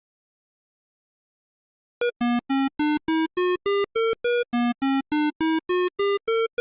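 Simulated Arduino buzzer playing the sargam scale Sa Re Ga Ma Pa Dha Ni Sa as short, buzzy beeps, about four a second, starting about two seconds in. The notes climb eight steps, then the scale starts over from the bottom.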